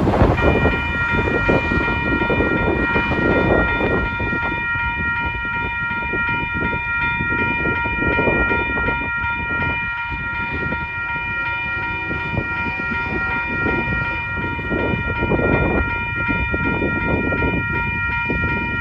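Railroad crossing warning bell ringing steadily, starting just after the crossing activates, while the signal lights flash and the gate arms lower. Wind buffets the microphone throughout in uneven gusts.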